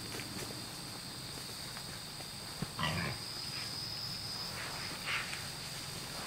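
Feral hogs grunting and squealing in short bursts in the dark. The loudest call comes about three seconds in, just after a sharp click, and a shorter one follows near the end. Crickets trill steadily throughout.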